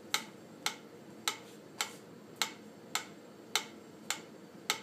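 Metronome clicking steadily at about 100 beats per minute, a little under two clicks a second.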